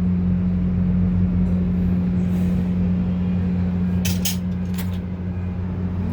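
Steady low hum of a Samsung AS243TTB air conditioner running, with two brief hissy clicks about four and five seconds in. The unit's beep, which has become barely audible, does not stand out.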